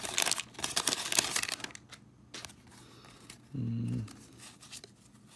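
Wax pack wrapper of 1991 Donruss baseball cards crinkling and tearing open for about the first two seconds, then quiet handling of the cards with one short hum from a voice.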